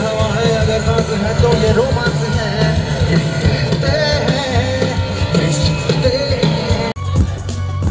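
Loud music with a sung melody over a rock-style beat. About seven seconds in it cuts off abruptly into a different piece with a heavy bass line and a regular drum beat.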